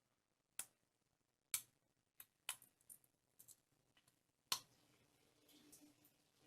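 A few short, sharp clicks and knocks, about seven scattered over several seconds, with a faint low hum coming up after the last one.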